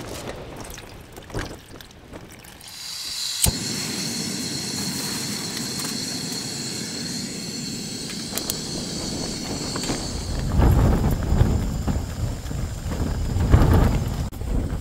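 Canister gas stove burning under a titanium mug with a steady hiss, starting abruptly with a click about three and a half seconds in. A low rumble builds from about ten seconds in.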